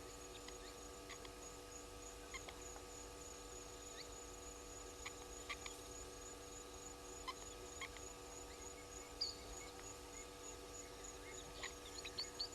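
Faint waterhole bush ambience: a high, steady, pulsing insect trill over a low steady hum, with scattered short bird chirps that come thicker near the end.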